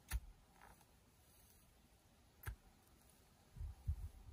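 Shovel blade chopping into grassy soil: two sharp strikes, one just after the start and one about two and a half seconds in, then dull low thumps near the end as earth is broken loose.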